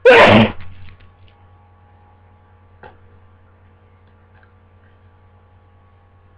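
A single loud sneeze from a person with a head cold, blasting out right at the start and dying away within about a second. A faint click follows about three seconds later, over a steady low electrical hum.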